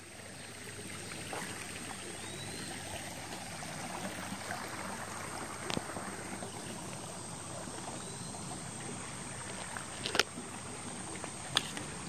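Creek water running steadily, with insects keeping up a thin, steady high-pitched buzz, fading up over the first second. A few sharp clicks break in, the loudest about ten seconds in.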